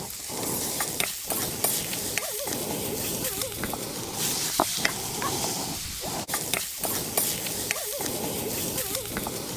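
Twice-cooked pork stir-frying in a carbon-steel wok over a wood fire: a steady sizzle, with the metal ladle scraping and clanking against the wok every second or so.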